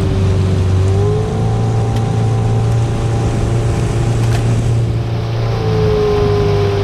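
Motorboat engine running steadily under way, its pitch shifting slightly about a second in and again near the end.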